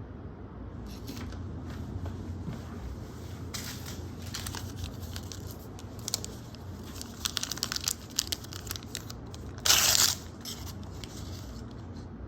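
Toy packaging being handled: crinkling and tearing in scattered crackles, with one loud short rip about ten seconds in.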